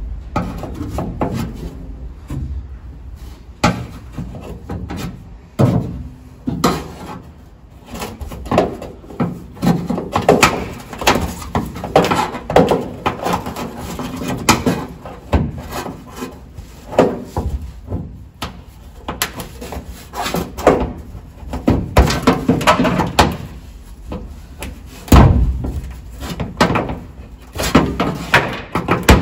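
Irregular knocks, clicks and scraping as rock-hard rubber window seal on a 1963 Ford Falcon's rear window is picked and broken away from the inside with hands and a hand tool, with an occasional sharper knock.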